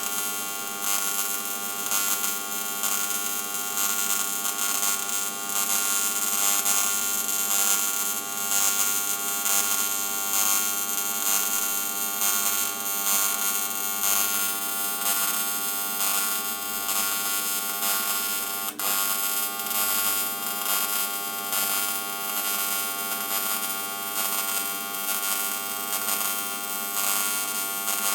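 TIG welding arc buzzing steadily as the flange is welded onto the rotating boost tube, with a brief drop-out about two-thirds of the way through.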